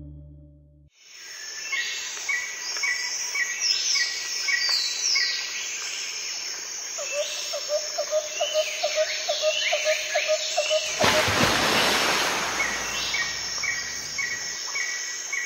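Wild birds calling repeatedly: fast regular chirps, falling whistled notes, and a run of lower quick notes partway through. A burst of rushing noise sweeps in about eleven seconds in and lasts about a second and a half.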